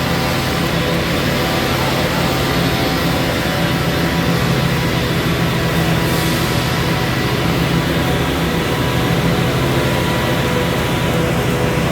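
Construction machinery engine running steadily, a constant low hum with no change in speed.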